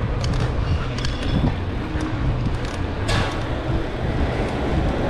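Steady rumbling road and traffic noise heard from a moving bicycle, with scattered light ticks and a short hiss about three seconds in.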